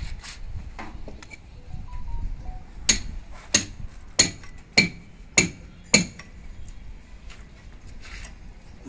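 A hammer striking metal: six evenly spaced ringing clinks, a little more than half a second apart, starting about three seconds in.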